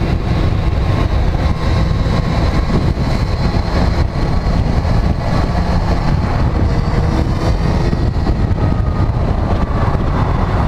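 Motorcycle riding under way in traffic: the engine running steadily, buried in a loud, constant low rumble of wind on the microphone.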